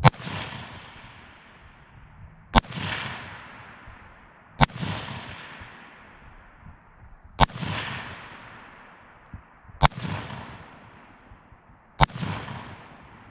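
AR-15 rifle firing six slow, aimed single shots about two to three seconds apart, each crack trailing off in an echo.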